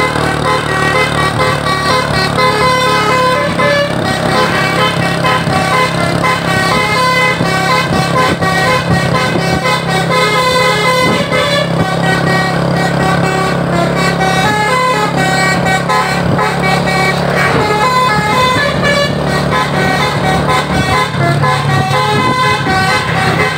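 A bus's "telolet basuri" multi-tone air horn playing a fast melody of short stepped notes, over the steady hum of the engine.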